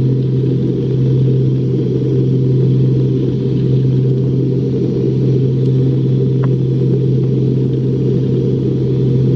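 Light aircraft's piston engine and propeller droning steadily, heard from inside the cabin on the approach to land, with a steady low hum under the noise.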